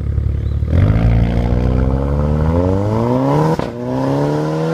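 Volkswagen Golf R Mk6's turbocharged 2.0-litre four-cylinder through a Fi Exhaust turbo-back valved exhaust with a catless downpipe, rumbling at idle and then, under a second in, accelerating hard. The note climbs steadily, breaks off briefly at an upshift about three and a half seconds in, then climbs again.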